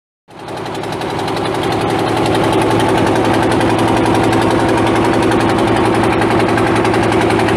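A wooden passenger boat's engine running steadily, heard from on board, with a fast, even beat; it fades in over the first couple of seconds. The sound is called irritating.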